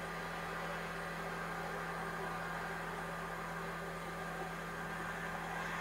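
Steady hiss with a constant low hum: the background noise of a VHS-copied camcorder recording, with no distinct sound events.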